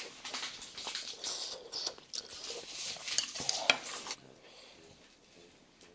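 Close-miked eating sounds: chewing a spoonful of pork kimchi jjageuli, with wet, crackly mouth noises and small clicks, stopping suddenly about four seconds in.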